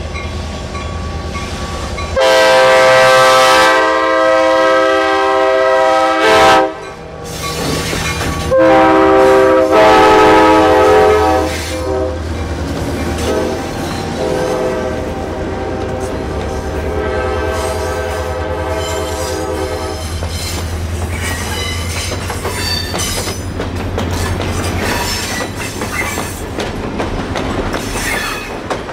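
The horn of former Coaster F40PHM-2C diesel-electric locomotive 2103 blows two long, loud multi-note blasts, then keeps sounding more faintly for several seconds. The locomotive's steady low engine drone runs underneath. In the last third the train's wheels click over the rail joints as it runs past.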